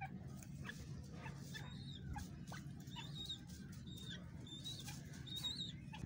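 Grey francolin giving a string of short, high chirps from about a second and a half in, with brief rustles of dry straw as it moves. A steady low hum runs underneath.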